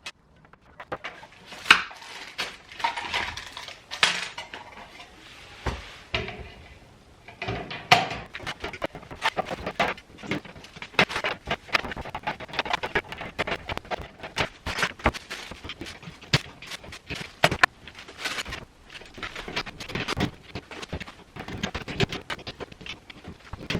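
Irregular clinks, knocks and clatter of hard objects being handled and set down, many small impacts in a row with brief pauses between.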